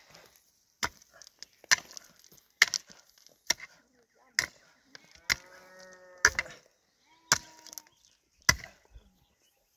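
A pickaxe striking hard, stony ground in steady, repeated blows about one a second, nine sharp strikes in all.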